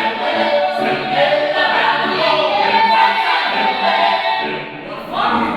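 A choir singing together, several voices at once, with a brief dip about five seconds in before the voices swell again.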